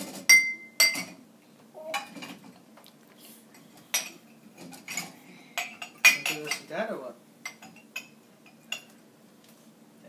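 Drinking glasses and bottles clinking and knocking against each other and the wire rack of an open dishwasher as they are lifted out: a run of sharp clinks, one ringing briefly just after the start, busiest about six seconds in and thinning to a few ticks near the end.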